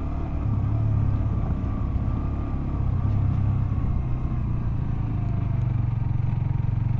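Motorcycle engine running steadily at low revs, a constant low hum heard from the rider's seat.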